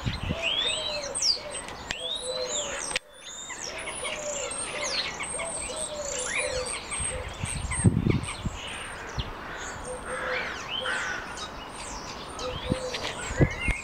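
Garden birds chirping and twittering in a busy chorus of quick high calls. Under it, low cooing notes repeat in short runs.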